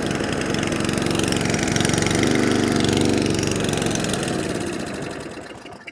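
Small petrol engine of an Atco Balmoral cylinder lawnmower running steadily, then winding down and stopping near the end. It really wants the choke to keep running, a sign that its carburettor needs cleaning.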